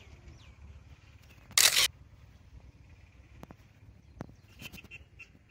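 A camera shutter click, once, about one and a half seconds in, as a phone selfie is taken.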